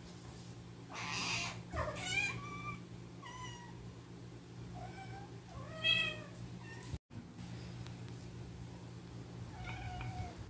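Tabby cat meowing in a series of short calls, the loudest about six seconds in, with a brief rustle about a second in.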